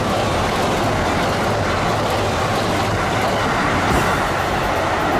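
A train running past close by, a steady noise of wheels on the rails, which is taken for a Thunderbird limited express.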